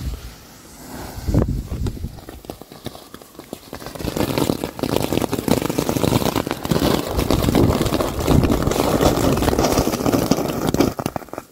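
Pyroland Samurai Soul firework fountain: the fuse sputters for a few seconds, then about four seconds in the fountain starts with a loud rushing hiss full of dense crackle. It dies down near the end.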